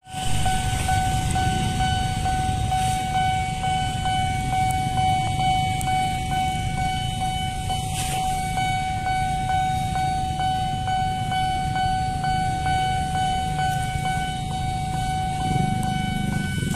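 Railway level-crossing warning alarm sounding a continuous steady tone with faint regular pulsing, over a low background rumble.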